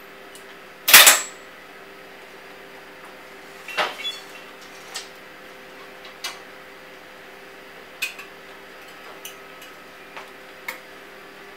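Glassblowing tools clanking and clinking against metal and glass: one loud sharp clank about a second in, then a scattered string of lighter clinks and taps. A steady hum runs underneath.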